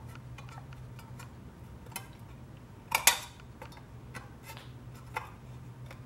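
Thin metal can rim being bent over with a slotted wooden bend gauge: a few light clicks and crinkles of the metal, the sharpest about three seconds in. A steady low hum sits underneath.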